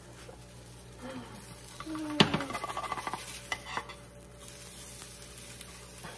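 A large spatula scrapes under and knocks against a small nonstick frying pan while a smashed-potato patty sizzles in it, as the patty is lifted and turned. A sharp knock about two seconds in is the loudest sound. It is followed by about a second of crackling and scraping, then a couple of lighter taps.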